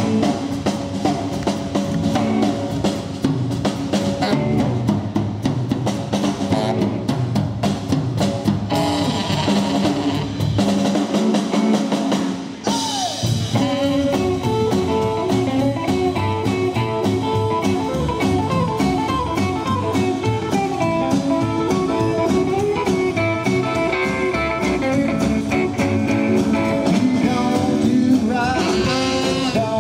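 Background music: a band song with electric guitar, drums and singing.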